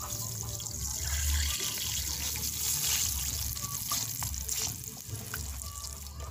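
Garlic and scotch bonnet pepper frying in hot oil in a pan: a steady sizzling hiss with scattered small crackles and a low rumble underneath.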